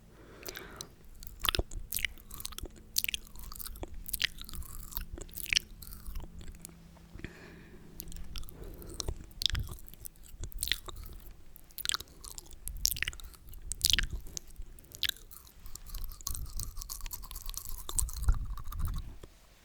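Close-miked sticky, wet mouth sounds: many irregular clicks and pops of the lips and tongue.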